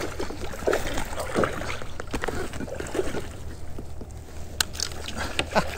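Water splashing and sloshing around a kayak as a hooked bass is played in on rod and reel, with a few sharp knocks near the end.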